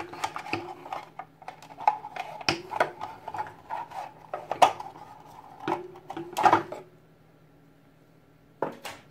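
Handling noise: irregular clicks, knocks and light clatter of a Logitech Z200 speaker and its kickstand as the speaker is pushed through the stand to take it off. The clatter dies down about seven seconds in, with one last knock near the end.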